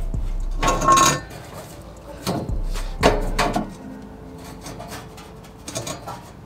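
Metal clanking and scraping from the exhaust pipe and its hanger mount as hands pull the rubber hanger off. It comes in two bursts, about a second in and about three seconds in, with quieter handling noise after.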